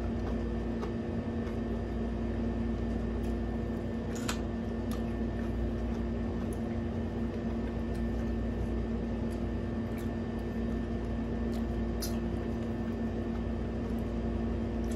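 Steady mechanical hum of a room appliance under quiet eating sounds: hands peeling shrimp and crab shells, with a few sharp little clicks, the clearest about four seconds in and again near twelve seconds.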